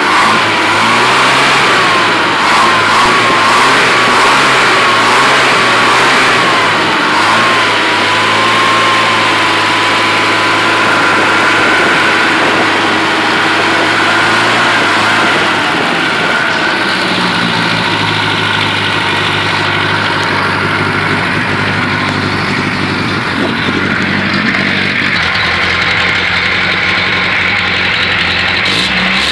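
Freshly rebuilt Dodge 1.8 inline four-cylinder engine running, revved by hand at the carburettor throttle linkage so its speed rises and falls, then settling to a steadier idle about halfway through. A thin whistling tone sits over it for the first third. The carburetion is not yet adjusted.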